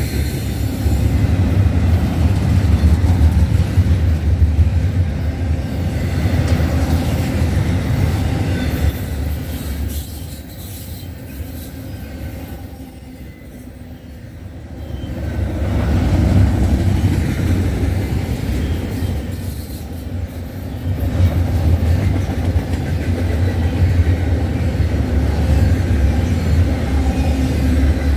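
CN intermodal freight train's cars rolling past close by: a heavy, steady rumble of wheels on rail. It eases to a quieter stretch about ten seconds in, swells back a few seconds later, and dips briefly once more.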